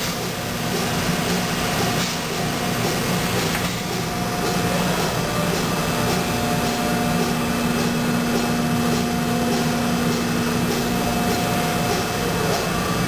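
Injection moulding machine running through a cycle with its stack mold closed: a steady mechanical hum with a couple of held tones, one of which drops out and comes back about six seconds in.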